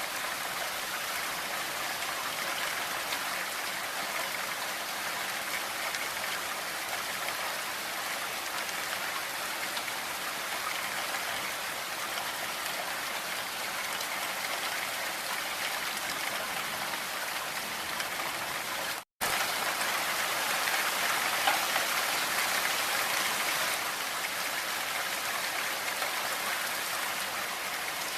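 Blizzard: strong wind driving snow through forest trees, a steady, even hiss. It cuts out for a split second about two-thirds of the way through and comes back slightly louder.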